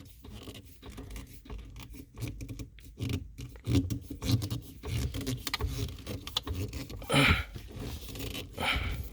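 Hands twisting the loose shift knob of a 2019 Toyota Highlander to the right to tighten it, the knob and its boot rubbing and scraping in short, irregular strokes. Two louder scrapes come near the end.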